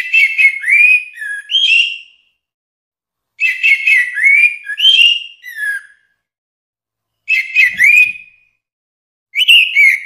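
Orange-headed thrush singing: four short phrases of rapid whistled notes that slide up and down, each separated by a pause of about a second.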